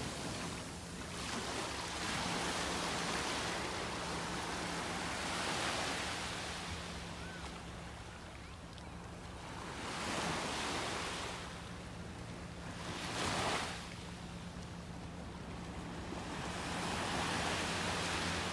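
Small waves breaking and washing up on a sandy beach, swelling and falling away every few seconds.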